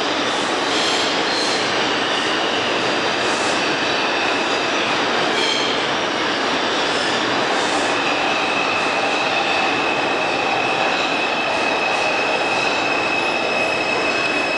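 R62A subway train pulling out of the station and running off down the tunnel, a steady noise of wheels on rail. A steady high-pitched wheel squeal sets in about eight seconds in and holds.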